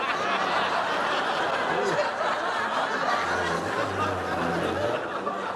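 Studio audience laughing, a continuous crowd laugh at a steady level.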